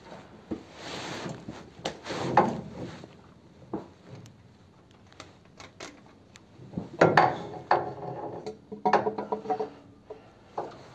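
Scattered metal clinks and knocks with rustling as a gasket and pipe flange are handled and worked onto studs under a car. The louder knocks come in clusters about seven and nine seconds in.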